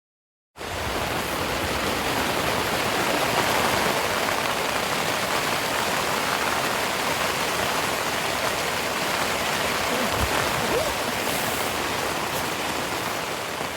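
Steady rushing water, beginning abruptly about half a second in.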